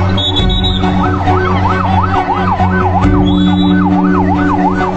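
Emergency-vehicle siren on a fast yelp. About a second in, its pitch settles into sweeping up and down about three times a second.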